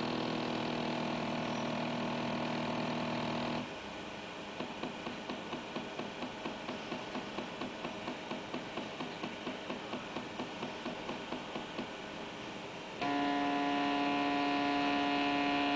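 Unipolar stepper motor running through its speed program: a steady whine from fast stepping for about three and a half seconds, then slow stepping heard as even ticks about four a second, then a steady whine again for the last few seconds.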